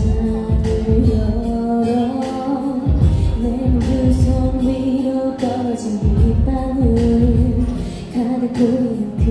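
A woman singing a Korean pop song into a microphone over amplified band accompaniment with a steady drum beat.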